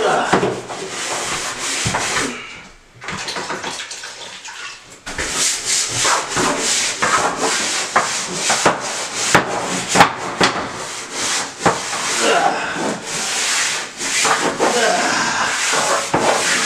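A brush scrubbing a bathtub's surface in quick, rasping back-and-forth strokes, dropping quieter for a couple of seconds about three seconds in before picking up again.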